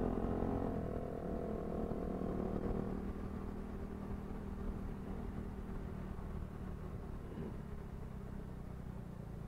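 KTM RC390 single-cylinder engine running at road speed. Its note eases and gets quieter about three seconds in, over a steady low wind rumble on the bike-mounted microphone.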